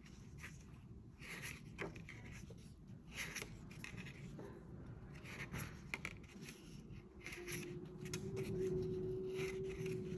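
Short scratching strokes on paper, like a pen or pencil writing or paper being rubbed, coming every second or so, with a few light clicks. A faint steady hum comes in about seven seconds in.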